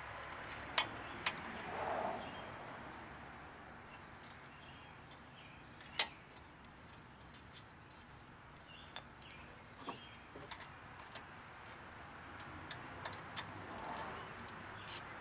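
Occasional sharp metallic clicks as the brake caliper's mounting bolts are handled and started by hand. The two loudest come about a second in and about six seconds in, with a few fainter ticks later, over a quiet outdoor background with faint bird chirps.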